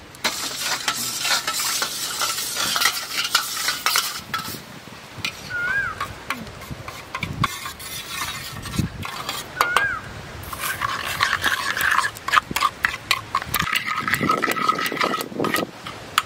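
Steel spoon stirring and scraping in a steel bowl, mixing sugar into grated watermelon pulp, with many quick clinks of metal on metal. Two brief chirps are heard in the middle.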